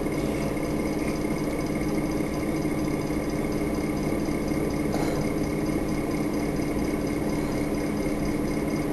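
Steady low hum with an even hiss, unchanging throughout, with no speech.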